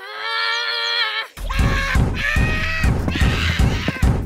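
Cartoon sound effects: a high, held cry that lasts just over a second and cuts off suddenly, followed by a busier jumble of effects.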